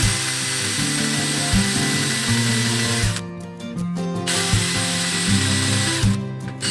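An electric power tool's motor runs at steady speed with a high whine for about three seconds, stops for a second, then runs again for about two seconds, over background music.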